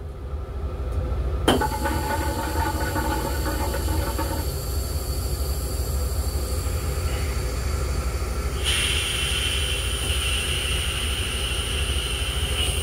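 Long Island Rail Road M3 railcar running, a steady low rumble heard from inside its restroom. A sharp knock comes about a second and a half in, followed by a thin whine for a few seconds, and a steady hiss comes in about nine seconds in.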